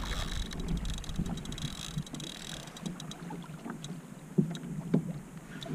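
Water lapping against a kayak hull with wind on the microphone, and scattered small clicks and a few short knocks from gear handling on the boat.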